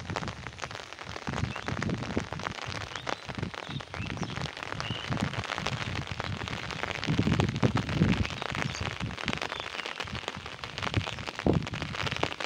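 Wind buffeting an outdoor microphone, with crackling and low rumbling gusts that grow stronger about seven seconds in and again near the end.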